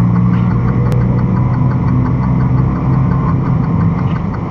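Semi truck's diesel engine running steadily at road speed, heard from inside the cab as a low, even hum with road noise.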